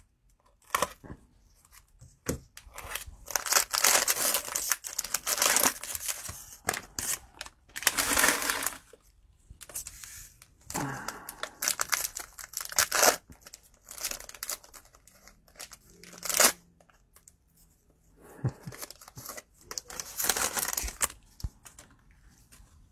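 Cellophane wrappers of trading-card cello packs being torn open and crinkled, in a series of irregular rustling bursts with a few sharp crackles.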